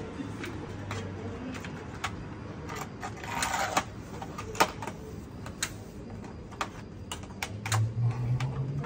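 Scattered light clicks and taps, with a short scraping rustle about three and a half seconds in, as a plastic LED batten light fixture is handled and pressed into place overhead. A low hum rises in pitch near the end.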